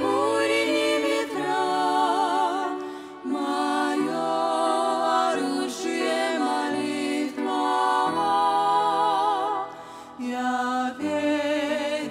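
Women's voices singing a slow worship song in harmony, with long held notes and wide vibrato, over grand piano accompaniment. There is a short break between phrases near the end.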